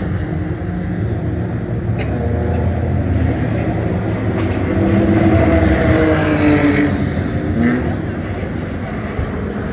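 Race car engines running around the circuit, with one car driving past about five seconds in, its engine note loud and falling in pitch as it goes by.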